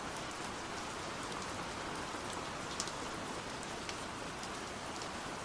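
Steady rain, an even hiss of falling rain with a few faint drop ticks.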